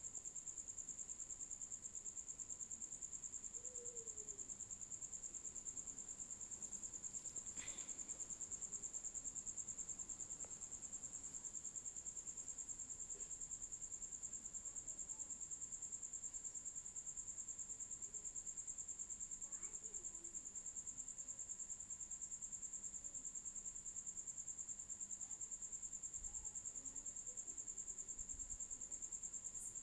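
A cricket trilling steadily: one continuous, high-pitched, finely pulsing trill.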